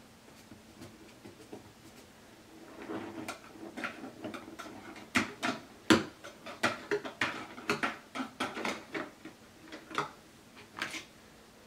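A cat crunching dry kibble: a run of irregular sharp crunches and clicks that starts about three seconds in, is loudest near the middle and thins out near the end.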